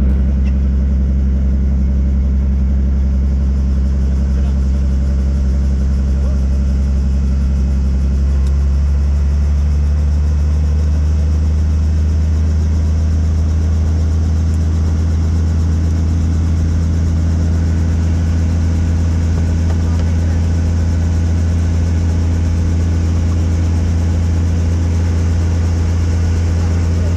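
Helicopter engine and rotor running: a loud, steady low drone made of several held tones, whose pitch shifts slightly about eight seconds in.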